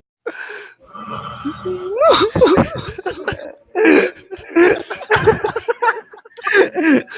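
A sleeping man snoring with a rasping breath about a second in, followed by people laughing and voices.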